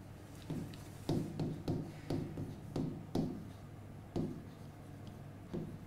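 Pen tapping and scraping on a whiteboard as words are written: several short, irregular strokes over a faint steady hum.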